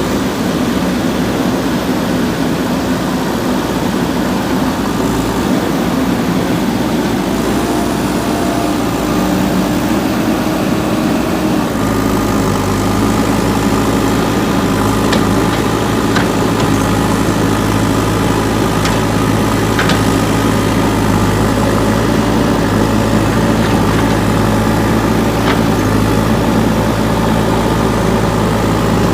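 Diesel engine of a JCB 3DX backhoe loader running steadily. About twelve seconds in, its note steps up and holds at a higher, stronger pitch.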